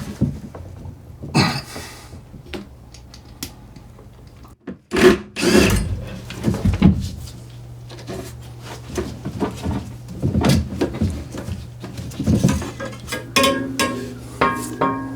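Knocks, clicks and rustling from PVC drain pipe and fittings being handled while they are primed, over a steady low hum.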